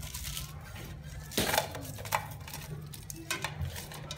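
Lemongrass stalks dropped and laid into an empty aluminium pot, knocking and clattering against the metal several times, loudest about a second and a half in. A steady low hum runs underneath.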